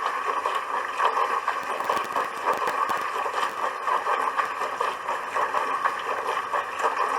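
Dishwasher running, with water spraying and splashing inside the tub: a steady rushing noise that flickers slightly.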